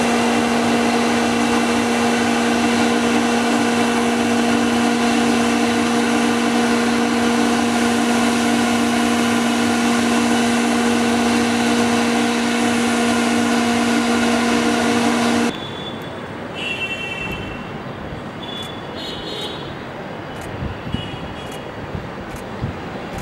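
Jet engines of a Boeing 777-300ER (GE90) landing, a loud steady drone at one fixed pitch that cuts off abruptly about 15 seconds in. A quieter background with a few faint high chirps follows.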